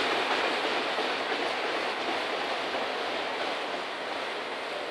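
Enclosed autorack freight cars rolling past, their steel wheels on the rails making a steady rolling noise that slowly grows quieter.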